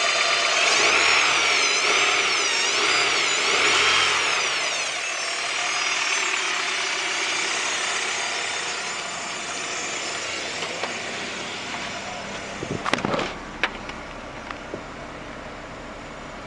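1998 Honda Prelude H22A4 engine running with a hard whine from the oil pan, its pitch rising and falling several times with the revs, then dropping and carrying on more faintly; the owner suspects a failing oil pump, with the oil pressure light flickering at idle. A few sharp knocks sound near the end.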